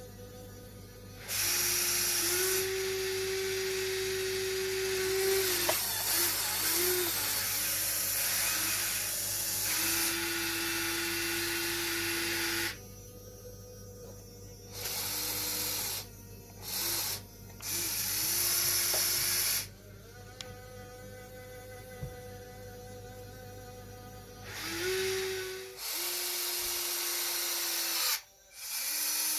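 Small electric motors of a radio-controlled excavator whining as its functions are worked, starting and stopping: one long run of about ten seconds, then several shorter spurts, over a steady low hum.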